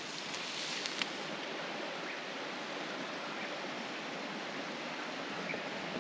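A wood campfire crackling, with a few sharp pops, during about the first second, then a steady, even rush of a flowing creek.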